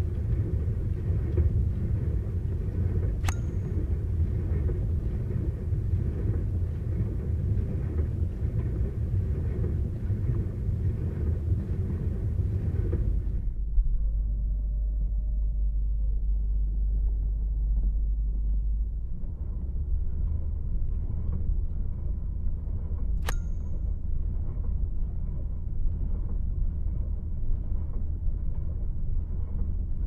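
Kitchen dishwasher running, its steady low churn and rumble picked up through contact microphones on the stainless steel door. About 13 seconds in, the recording switches to a different pair of contact mics and the high hiss drops away while the rumble carries on. A sharp click comes at about 3 seconds and another at about 23 seconds.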